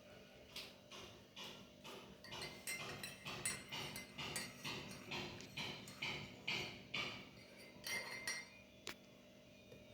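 A metal spoon clinking against a kitchen vessel in a quick, regular rhythm of about two or three strikes a second, stopping near the end.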